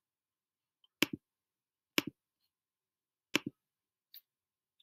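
Computer clicking: three sharp clicks about a second apart, each a quick pair of ticks like a button pressing and releasing, then a fainter tick near the end.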